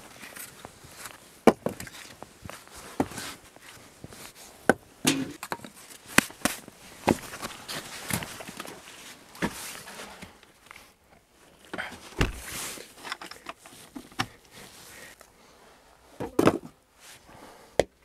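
Split firewood logs knocking and clattering as they are handled and dropped onto a wooden floor, with footsteps and rustling in between. The knocks come irregularly, a few of them much louder than the rest.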